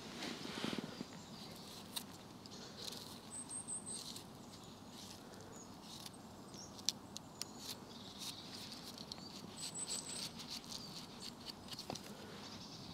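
Quiet wet-forest ambience: scattered light clicks and patter with soft rustling that comes and goes, and two short runs of thin, high chirps, about three seconds in and again near ten seconds.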